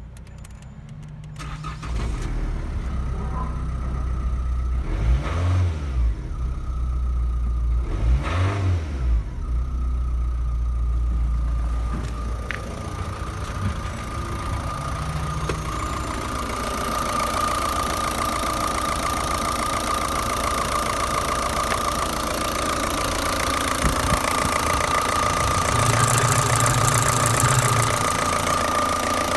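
Opel Astra G's Y17DT 1.7-litre four-cylinder turbodiesel being started about two seconds in. It is revved twice, then settles to a steady idle with a steady whine over it. It is heard first from inside the cabin, then over the open engine bay.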